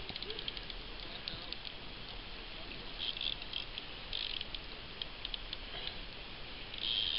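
Rapid light clicking of a fishing reel's ratchet as line is worked against a hooked salmon, coming in short runs, densest about the first second and a half and again around three and four seconds in.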